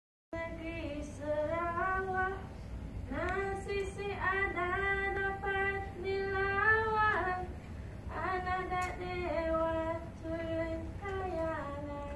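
A high female voice singing a slow, unaccompanied melody in three long phrases, holding notes and sliding into them.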